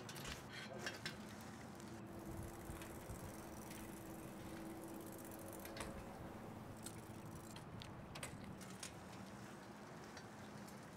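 Faint, scattered light clicks and ticks from a bicycle being ridden, over quiet outdoor background noise with a faint steady low hum.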